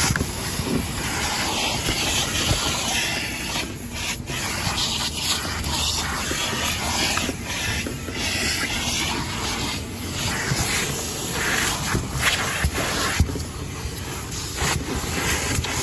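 A vacuum running with a steady hiss that dips and swells several times as the nozzle rubs over fabric seat upholstery and carpet.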